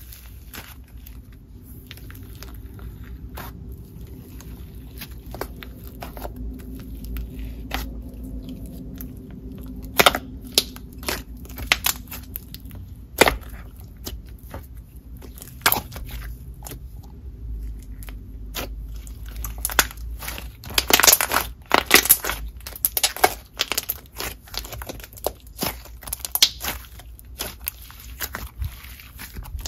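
DIY clay fizz slime being kneaded and stretched by hand as dry clay and foam chunks are worked into a white slime base: a run of crunches, crackles and sharp pops, busiest and loudest about two-thirds of the way through.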